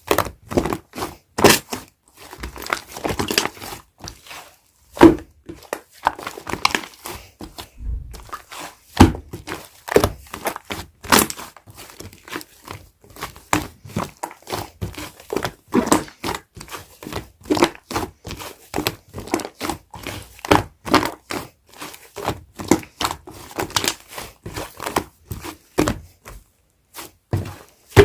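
Clay-mixed slime being squished, stretched and pressed by hand: a continuous run of irregular sticky crackles, clicks and small pops, with a few sharper snaps.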